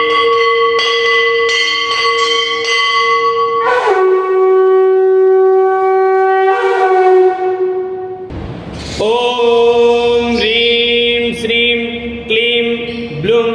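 Conch shell (shankh) blown in long held notes, several of them bending down in pitch as they start, with a breathy rush between blasts a little past the middle. Light bell strokes sound under the first few seconds.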